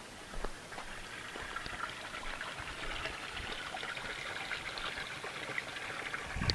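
Spring water trickling out of rocks into a stone basin, a steady splashing rush that grows louder about two seconds in as it comes closer.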